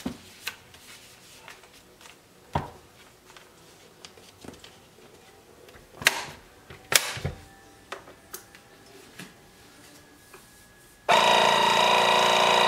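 A few clicks and knocks of the vacuum sealer's lid being closed and pressed down, then near the end the Geryon vacuum sealer starts its sealing cycle with a sudden, steady, loud buzzing hum.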